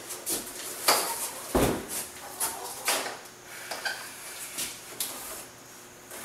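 Metal door hinges clinking and a heavy solid-core wooden door knocking against its frame as the door is lifted onto its hinges. It is an irregular run of sharp clicks and knocks, with one low thud about one and a half seconds in.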